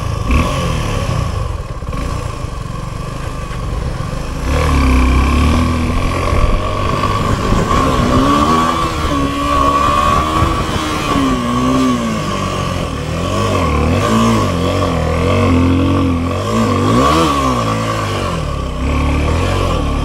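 Motorcycle engine being ridden off-road, revving up and down over and over as the throttle is opened and closed. The engine comes in louder about four and a half seconds in, and a steady high whine sits under it throughout.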